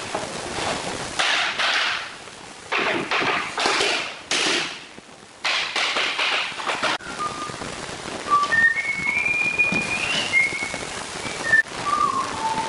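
Laminate floor planks scraping and sliding against each other as they are pushed into place, in short rasps. Then, about halfway through, a high whistled tune starts, with notes that step and glide.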